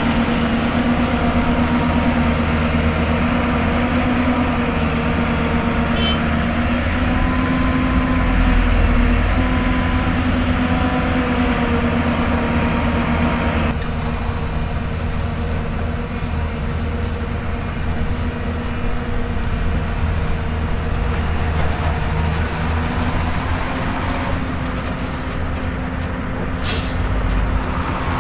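Hyundai Robex 220-9S excavator's diesel engine running under working load. Its pitch shifts a few times, and the engine eases off about halfway through. A few short knocks come near the end.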